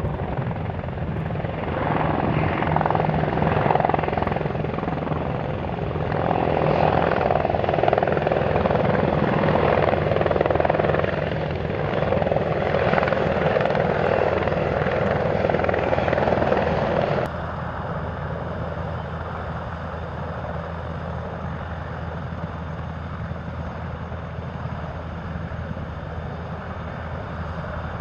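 Military helicopters running. At first the CH-47D Chinook's tandem rotors and turbine engines are loud and close. About two-thirds of the way in the sound drops suddenly to a steadier, quieter run of NH90 helicopters on the ground with their rotors turning.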